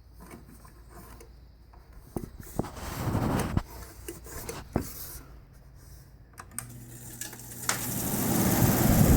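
A few clicks and knocks, then a GE Fashionaire window air conditioner starting up. A low motor hum begins past the middle, and the fan's rush of air grows steadily louder toward the end.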